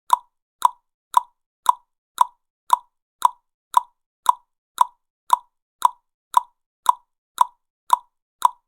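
Tongue clicks from a human mouth, short pops repeated at a perfectly even pace of about two a second, each one identical.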